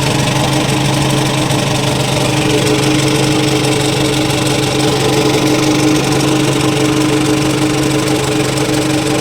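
Nissan NP300 engine running steadily with the air conditioning switched on, with a strange noise that the owner traces to the clutch flywheel.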